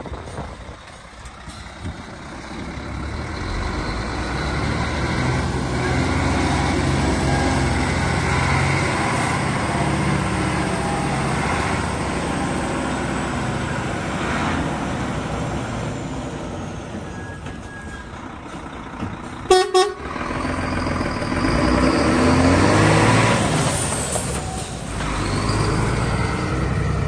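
DAF CF75 310 truck's six-cylinder diesel engine pulling away and driving past, building over the first few seconds and running steadily. About two-thirds of the way through, a horn gives two short toots.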